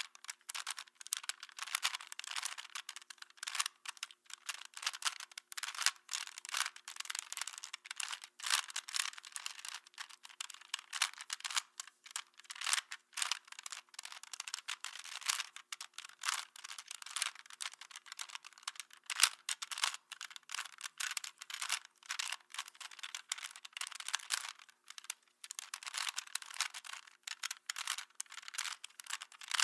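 Plastic Rubik's Cube being turned rapidly while it is solved: a continuous run of quick plastic clicks and rattling twists, in irregular bursts.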